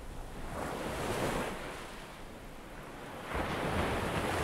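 Ocean surf breaking on a beach, swelling twice: once about half a second in and again, louder, near the end.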